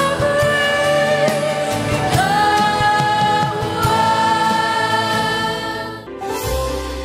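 Gospel music with singing voices holding long notes over a bass line. It breaks off about six seconds in, and a softer instrumental piece begins.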